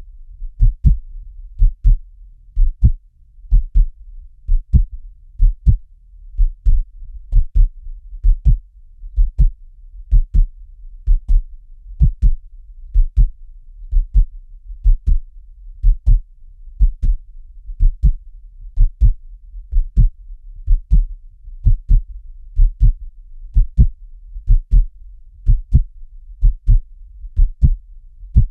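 A steady heartbeat, each beat a paired lub-dub thump, repeating at a slow resting rate of about one beat a second over a low steady rumble.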